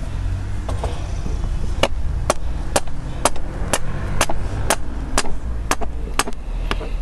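Hammer blows on a copper earth-mat frame for a lightning arrestor: about eleven sharp strikes, roughly two a second, starting about two seconds in.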